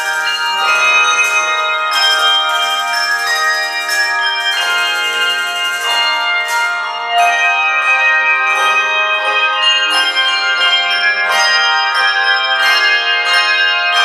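Handbell choir ringing a piece: many brass handbells struck together in chords, their tones ringing on and overlapping. A short lull comes about seven seconds in, followed by a louder chord.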